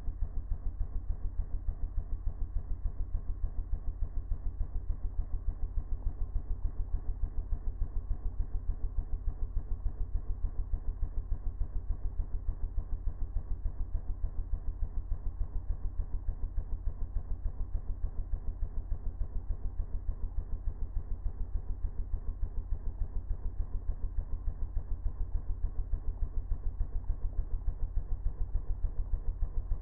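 Home-built wet tailpipe thermoacoustic engine running: a steady, fast, low chugging pulse of several beats a second that keeps an even rhythm throughout.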